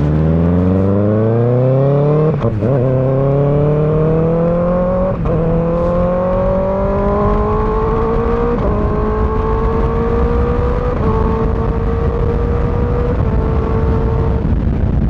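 Kawasaki ZX6R inline-four with an M4 GP19 slip-on exhaust (Q3 dB-killer insert) accelerating hard and shifting up through the gears. The pitch climbs and drops back at each shift, about five times, each climb gentler than the last, with wind noise underneath.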